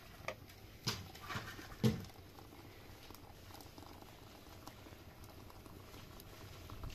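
Light knocks and clinks of a metal teapot against small tea glasses, four of them in the first two seconds, as tea is poured beside a wood fire. A faint, steady hiss follows.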